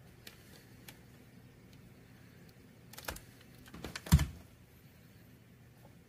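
Tools being handled on a workbench with a ribbed rubber mat: a few light clicks, then a cluster of knocks about three to four seconds in, the loudest a single dull thump as the plastic heat gun is lifted off the bench.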